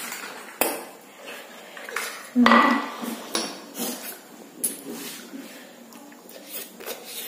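Metal forks clinking and scraping on a plate and a drinking glass, with noodles being slurped, during a meal. Scattered sharp clicks, and one louder knock about two and a half seconds in.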